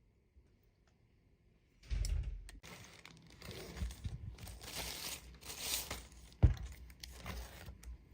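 Packaging crinkling and tearing as it is handled, starting about two seconds in, with one sharp knock about six and a half seconds in.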